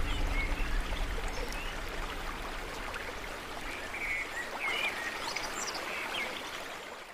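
A steady rushing hiss, like running water, slowly fading down, with a few faint high chirps over it.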